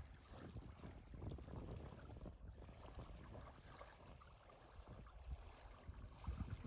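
Faint, uneven low rumble of wind on the microphone, with lake water lapping around the canoe.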